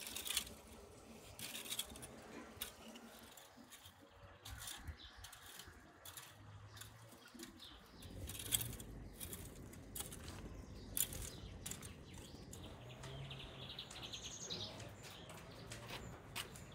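Faint garden ambience with birds chirping, over scattered short scratches and clicks from a metal rake working loose, freshly turned soil.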